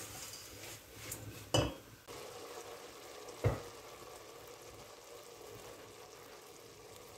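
Homemade egg noodles sizzling gently as they brown in oil and butter in a stainless steel pot, with a wooden spoon knocking twice against the pot in the first few seconds of stirring.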